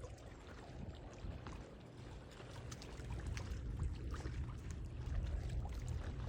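Sea water splashing and sloshing, full of small crackling splashes, over a low rumble of wind on the microphone.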